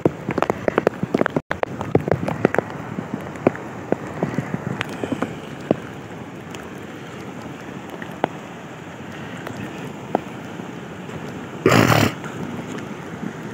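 Heavy rain with muddy runoff streaming along field channels: big drops patter sharply for the first few seconds, then settle into a steady hiss. A short, loud rush of noise comes near the end.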